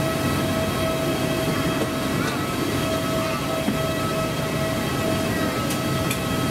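Steady hum of a parked airliner's air-conditioning and air systems at the cabin door, with a fixed high whine over a low rumble. A couple of light clicks come near the end.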